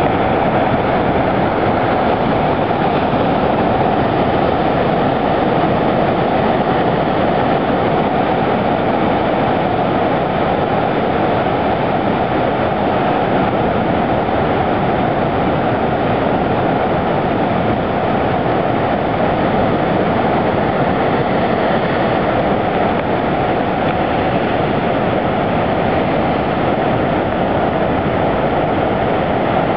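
Heavy ocean surf breaking over coastal rocks: a loud, steady rush of water and spray.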